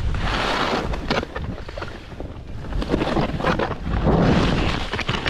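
Wind rushing over the microphone while going down a steep snow slope, with rough scraping of snow underfoot that swells and fades every second or so.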